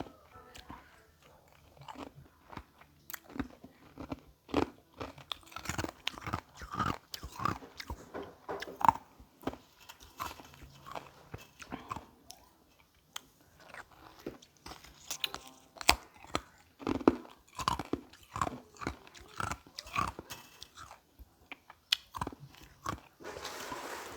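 Carbonated ice being bitten and chewed close to the microphone: irregular sharp crunches, with a quieter stretch about halfway through.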